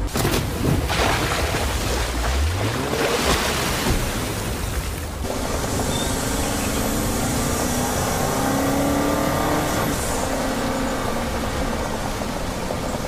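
Land Rover Defender OCTA's twin-turbo V8 driving through a river, with water splashing and the engine revving up about two seconds in. After an abrupt change about five seconds in, the engine runs steadily with tyre noise on a dirt track.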